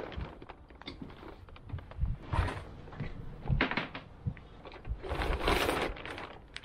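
Sail cloth rustling and knocks on a small sailboat's deck and mast as a sail is hauled about, with a longer rustle of the sail cloth about five seconds in.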